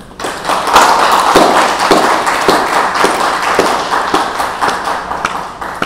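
Audience applauding, starting suddenly and slowly dying away near the end.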